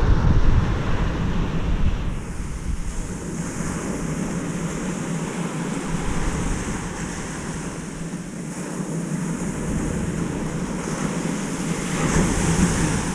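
Ocean surf breaking and washing on a beach, with wind buffeting the microphone, heaviest in the first two seconds. The surf swells louder near the end.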